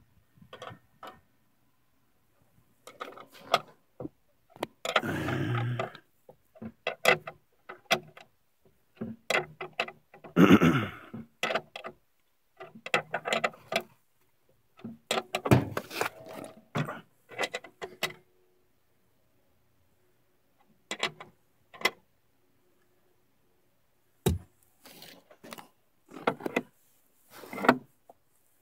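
A wrench turning a nut on the bolt that cinches a mantle beam to a wooden 2x6: scattered metal clicks, knocks and scrapes in irregular bursts, with rustling handling noise. A lull of a few seconds comes past the middle.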